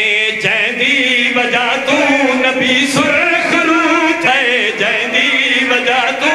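Men singing a Punjabi/Urdu qasida together through microphones, a lead voice backed by a small chorus in unison, with no instruments. The singing is continuous and melismatic, with wavering, ornamented pitch.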